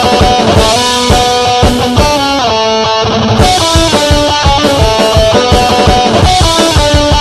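Computer-made punk rock instrumental from the Punk-O-Matic music generator: a distorted electric guitar plays a melody over a fast, steady drum beat, with a short break in the beat about three seconds in.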